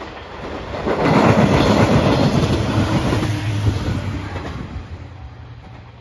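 Setouchi Anpanman Torocco diesel train passing close by, its wheels clattering over the rail joints under the running engine. The sound swells about a second in and fades as the train moves away.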